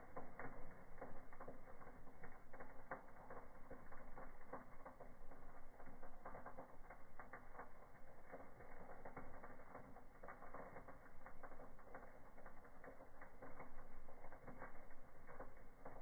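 Wood fire crackling in a fireplace: a dense, irregular run of small crackles and pops.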